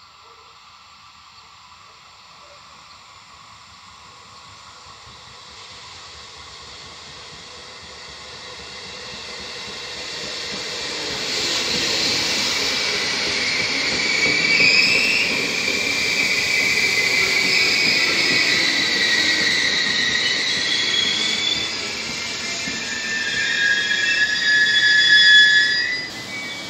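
Regional push-pull passenger train with a control car leading, rolling into the station and braking. The rumble of the wheels grows louder over the first ten seconds, then high wavering squeals rise and peak before cutting off sharply near the end as it slows for the stop.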